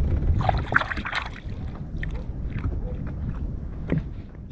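Wind rumbling on the microphone over water lapping at a kayak, with a few light clicks and knocks; it drops off near the end.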